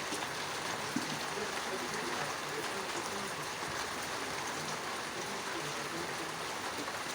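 Heavy rain falling in a steady hiss, with a single sharp drop tick about a second in.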